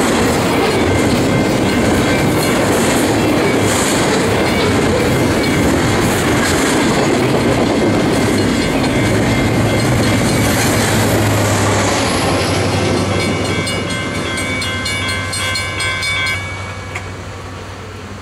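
Double-stack container well cars rolling past with steady wheel-on-rail clatter. Then the train's rear distributed-power locomotive, an EMD SD70ACe diesel, passes with a low engine hum, followed by rapid even clicking of its wheels over the rail. The sound drops away suddenly as the end of the train goes by, a few seconds before the end.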